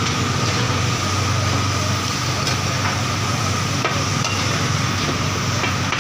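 Minced beef sizzling in oil on a large flat metal tawa, with a steady low hum underneath. Between about two and a half and four seconds in come a few sharp clicks as metal spatulas strike and scrape the griddle to turn the mince.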